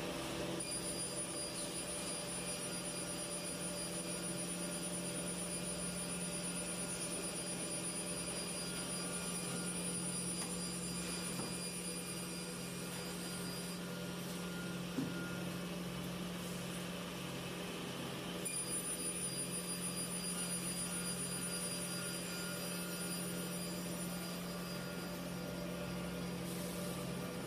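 Steady running hum of a fibre cement board grooving and slot milling line, its roller conveyors and motors, with a faint high-pitched whine. The whine drops out for a few seconds around the middle, and there is a single click just after it stops.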